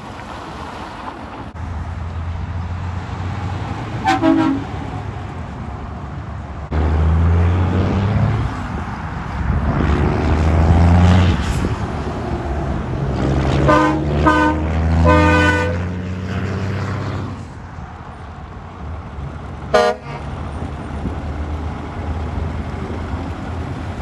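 Diesel semi trucks pulling away under load, their engines running heavily, with short truck-horn toots: one about four seconds in, a quick run of blasts in the middle, and one more short toot near the end.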